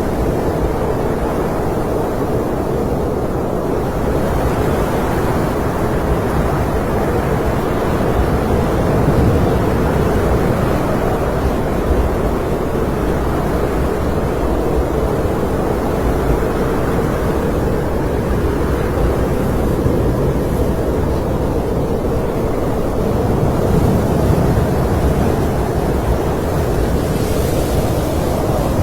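Snowstorm wind blowing steadily, a deep rushing noise that swells a little now and then.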